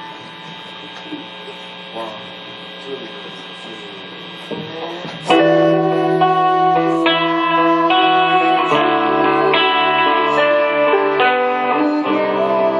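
Electric keyboard playing: a held chord fades under faint murmuring, then about five seconds in loud sustained chords come in and change every second or so.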